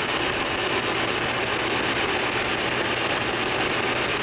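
Steady, even hiss with a faint low hum beneath it, and no voice in it.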